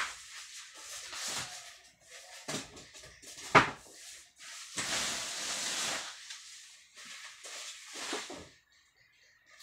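Packaging being handled: plastic wrap and foam packing rustling and scraping as a boxed subwoofer is lifted out and unwrapped, with one sharp knock about three and a half seconds in.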